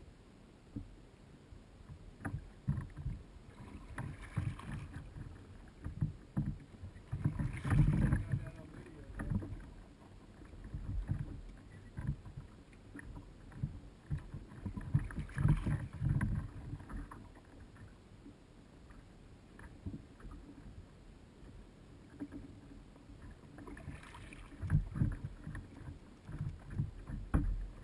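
Double-bladed kayak paddle dipping into the water stroke after stroke, with splashing and small knocks against the kayak. The water noise swells into louder rushes about 8, 16 and 24 seconds in.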